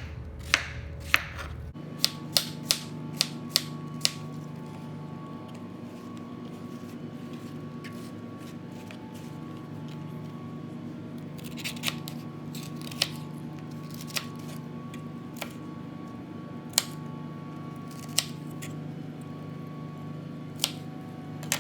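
Kitchen knife cutting zucchini on a cutting board: sharp knocks of the blade meeting the board, a quick run of cuts in the first few seconds, then single cuts every second or two. A steady low hum with faint tones sits underneath.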